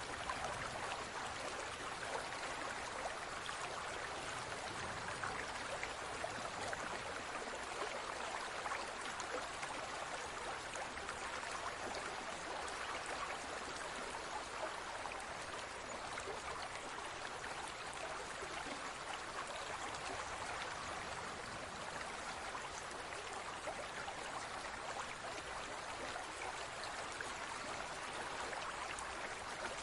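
Water circulating in a large aquarium, trickling and splashing steadily with a fine patter of droplets.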